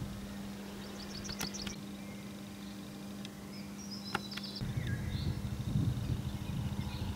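Small birds chirping in short, quick phrases over a steady low hum. A little past halfway, a low rumbling noise sets in and grows louder.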